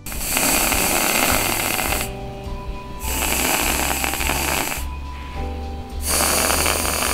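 Aerosol whipped-cream can spraying in three hissing bursts of about two seconds each, with short pauses between, as cream is piped out through the nozzle.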